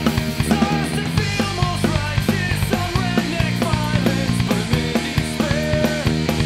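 A rock band plays a song on electric guitar, bass guitar and a drum kit with cymbals, with a steady drum beat throughout.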